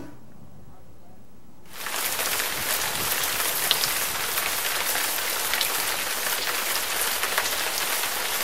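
A steady rain-like hiss with faint scattered crackles starts about two seconds in, after a quiet moment.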